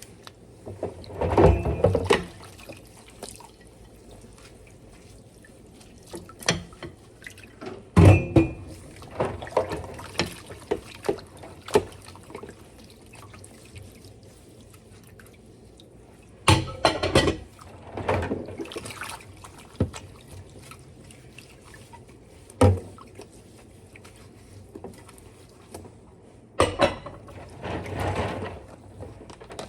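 Intermittent splashing of water with sharp knocks and clatters in between, as of washing up at a sink.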